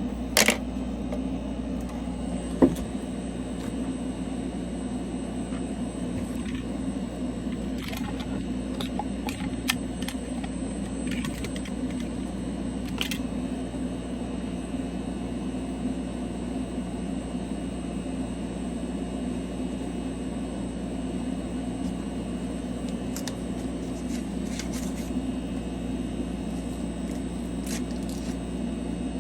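Steady low machine hum with a few sharp clicks, the loudest about half a second and two and a half seconds in.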